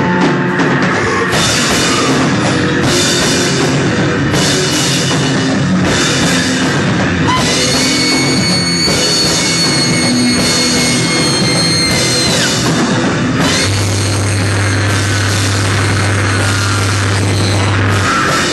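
A noise-rock band playing live and loud: drum kit and cymbals pounding under saxophone and amplified instruments in a dense wall of noise. A high, piercing held squeal runs from about seven to twelve seconds in, and a low steady drone comes in at about fourteen seconds.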